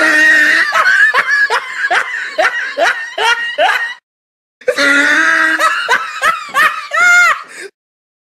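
Laughter sound effect: one person laughing hard in quick, rhythmic ha-ha pulses, breaking off for a moment about four seconds in, then starting again and ending on a drawn-out high-pitched note.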